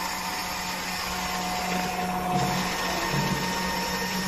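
Coffee vending machine dispensing black coffee into a paper cup: a steady motorised whirring hum as the drink runs out of the spout, wavering a little in its second half.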